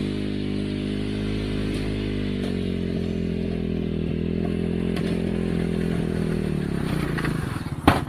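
Vehicle engine running steadily, then slowing and winding down near the end, followed by a single sharp click.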